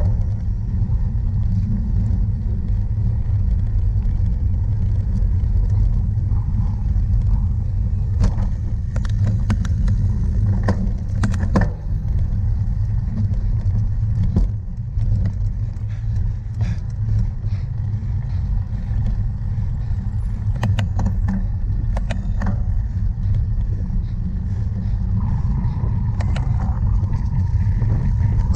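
Steady low rumble of wind buffeting the microphone of a camera riding on a cyclocross bike, with scattered sharp clicks and rattles from the bike.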